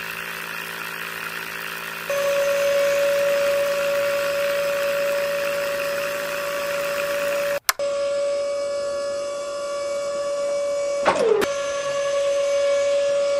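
Small brushed DC motor whining steadily as it spins the drill rod of a toy borewell rig into wet sand. Its pitch dips sharply and recovers once near the end, as the drill briefly bogs.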